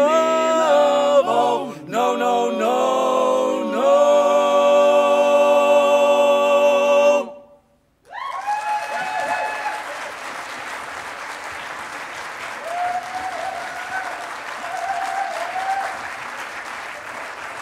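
Male barbershop quartet singing a cappella in four-part close harmony, ending on a long held chord that cuts off cleanly about seven seconds in. After a moment's silence the audience breaks into applause with scattered cheers.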